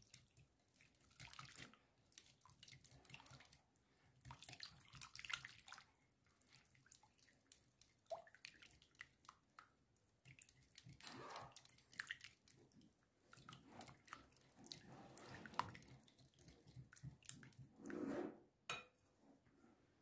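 Wire whisk beating a runny batter of milk and eggs in a glass bowl: faint, irregular sloshing and splashing, with a sharp click near the end.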